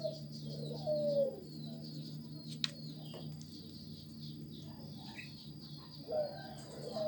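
A dove cooing in the background: a short falling call about a second in and again near the end. Faint rapid high chirping of small birds and a steady low hum run underneath, with one sharp click midway.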